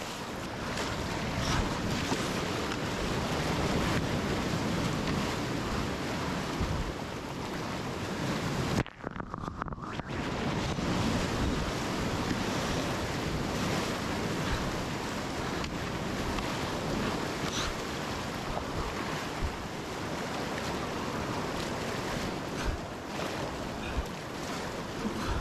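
Breaking surf and white water rushing around a kayak as it rides in through the shore break, with wind buffeting the microphone. About nine seconds in the sound goes briefly muffled for about a second.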